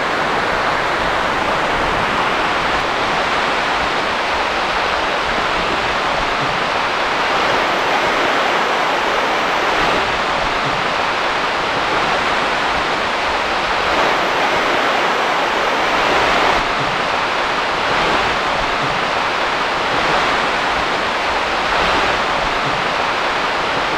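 Heavy tropical rain pouring down on the rainforest canopy and undergrowth: a loud, steady hiss of rain on leaves with no let-up.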